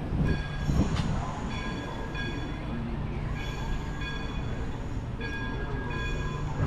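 A large bell ringing over and over, its strokes coming in pairs about every two seconds, over a steady low rumble.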